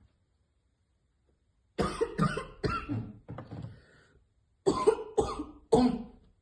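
A young woman coughing hard after choking on a hit from a vape: a run of three coughs trailing off, starting about two seconds in, then three more sharp coughs near the end.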